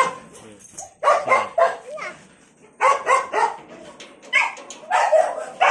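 A dog barking in several short bursts.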